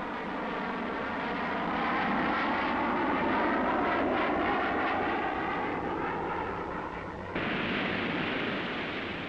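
Jet aircraft engine running: a high whine of several tones over a rushing noise. About seven seconds in it changes abruptly to a steady hiss.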